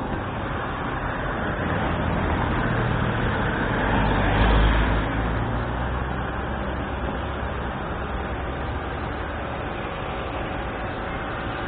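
Road traffic noise: a steady wash of traffic with one vehicle passing, its low rumble swelling about four seconds in and then fading.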